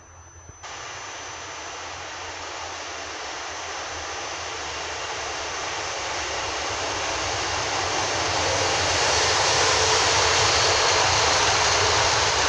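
ČD Cargo class 163 Škoda electric locomotive approaching and passing close by: a steady rumble and whir that starts abruptly about half a second in and grows louder, peaking as the locomotive goes past near the end.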